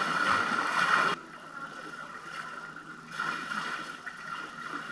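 Steady rush of flowing water. It drops sharply in level about a second in and rises again around three seconds in.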